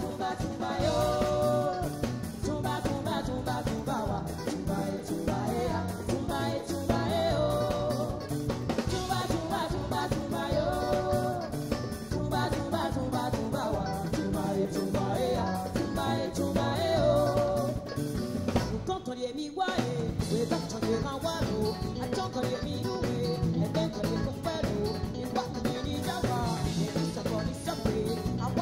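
Live band playing an upbeat song: a woman singing lead over drum kit, electric guitar and electric bass, with a brief break in the music about two-thirds through.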